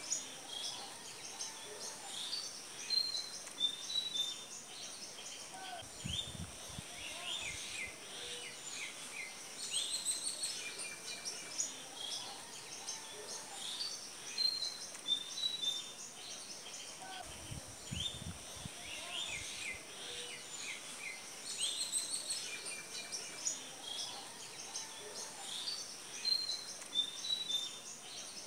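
Small birds chirping and calling over a steady high hiss, with the same run of calls coming round again about every twelve seconds. Brief low rumbles come twice.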